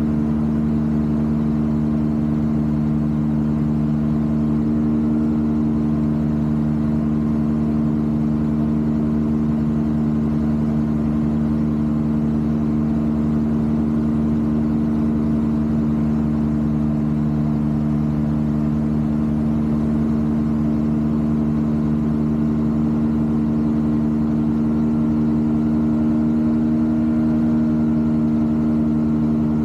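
Rotax 582 two-stroke twin engine and propeller of a Fly Synthesis Storch ultralight running steadily in level flight, heard inside the cockpit.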